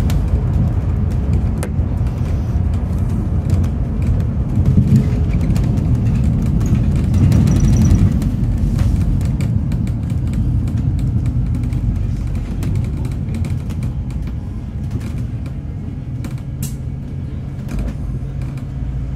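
Alexander Dennis Enviro400 MMC double-decker bus heard from inside the lower deck while moving: a low engine and road rumble with light rattles. It eases off in the second half as the bus slows into queuing traffic.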